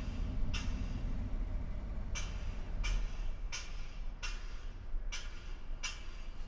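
Low, steady rumble of a waiting vehicle, with a run of sharp ticks about one every three-quarters of a second.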